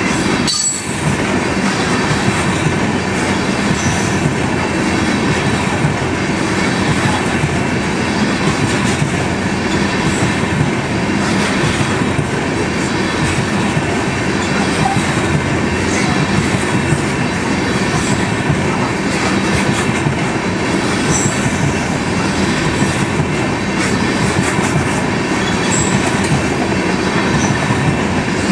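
Aluminum coal gondolas of a long coal train rolling past at close range: a loud, steady running noise of steel wheels on the rails and rattling car bodies.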